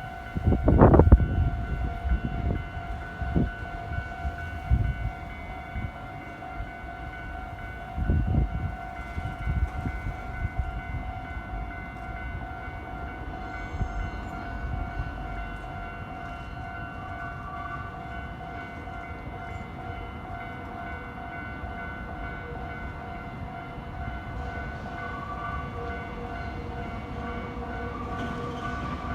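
Railway level crossing warning bell ringing steadily. There are low thumps and rumbles in the first ten seconds or so. Near the end a train approaches and grows louder.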